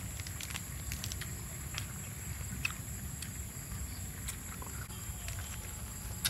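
Small clicks and crinkles of lettuce leaves being handled, folded and dipped into chili sauce, with a bite or mouth click at the very end. A steady high whine and a low rumble sit underneath.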